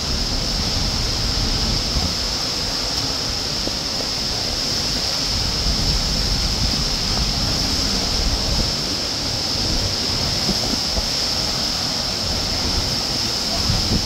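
Steady rushing of a waterfall plunging into its pool close by, with an uneven low rumble of wind on the microphone.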